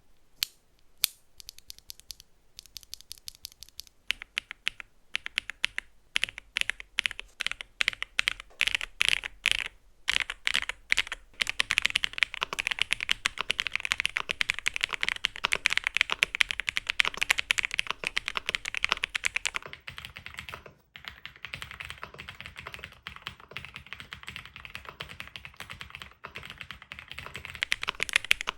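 Typing on a Qsenn Q104 keyboard fitted with Akko Cream Yellow V3 linear switches. It starts with a few separate keystrokes, moves to steady single strokes, and from about twelve seconds in becomes fast continuous typing, with one short pause.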